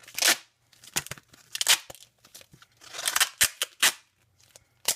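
Duct tape being pulled off the roll and torn, in about half a dozen short noisy strips spread through, with a short sharp tear near the end.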